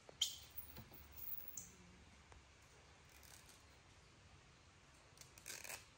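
A small plastic snack cup and spoon being handled: a sharp click just after the start, a few soft clicks, and a short crinkle near the end.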